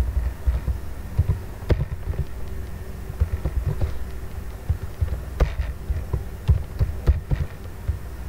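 Computer keyboard keystrokes, picked up mostly as irregular dull low thumps with a few sharper clicks, over a faint steady electrical hum.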